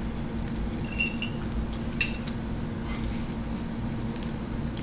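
A metal fork clinks against a china plate a few times, sharpest about one and two seconds in, with quiet chewing, over a steady low hum.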